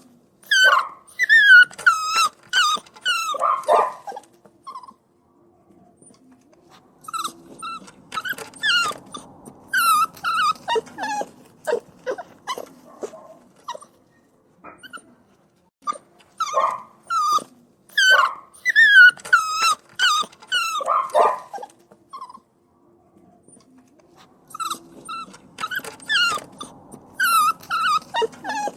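Puppies whining and crying: bouts of high-pitched cries that rise and fall in pitch, broken by pauses of a second or two.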